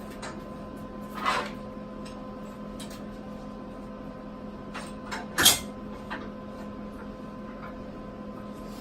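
Metal knocks and clanks as slide clamps are set and tightened on a steel welding table: a knock about a second in and a louder, sharper one about five and a half seconds in, over a steady electrical hum.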